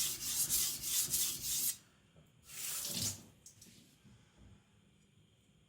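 Steel knife blade stroked quickly and rhythmically across a wet whetstone, the scraping stopping after about a second and a half. About a second later there is a brief splash of water.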